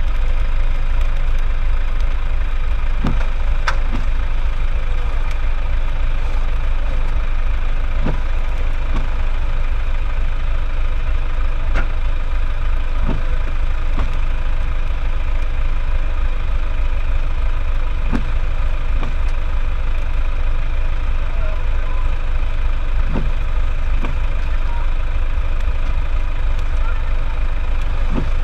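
A car's engine and road noise while driving: a steady deep rumble with a few faint scattered clicks.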